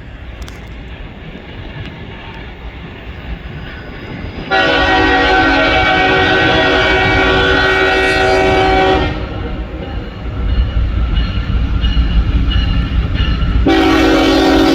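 Fouled Nathan K5HL five-chime air horn on an approaching CSX freight locomotive, sounding a chord that is off from a clean K5HL. It gives one long blast of about four and a half seconds that cuts off suddenly, then starts again near the end. Between the blasts the locomotive's rumble grows louder as it draws close.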